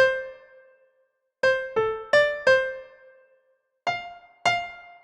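Keyboard music of single electric-piano-like notes, each struck and left to ring and fade. A short phrase of four notes comes about a second and a half in, and two more notes near the end, with brief silences between the phrases.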